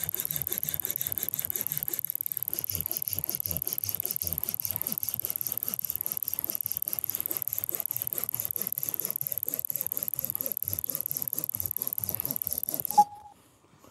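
Stopwatch-style ticking sound effect: rapid, perfectly even ticks over a steady high tone, which cuts off abruptly about 13 seconds in with a short beep as the timed cut ends.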